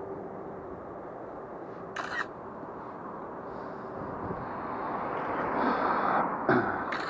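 Outdoor street ambience with a steady noise bed. Near the end it swells and fades over a couple of seconds, like a passing car, with a few short sharp noises about two seconds in and near the end.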